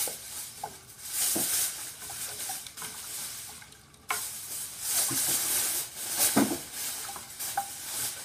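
Wooden spoon stirring runny cereal-flour porridge in a saucepan: repeated swishing, sloshing strokes about once a second, with an occasional light scrape or knock of the spoon against the pot.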